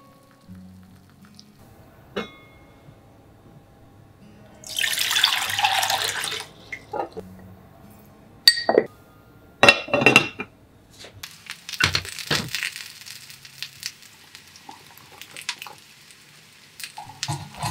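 Water running into a small enamel saucepan for about two seconds, then sharp clinks of a measuring spoon as salt goes in. After that comes a softer steady hiss with a few knocks as the pan sits on a gas burner.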